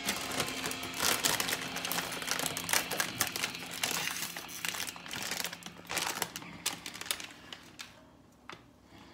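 Thin plastic crinkling and rustling in quick, irregular crackles as it is handled, dying away about a second before the end.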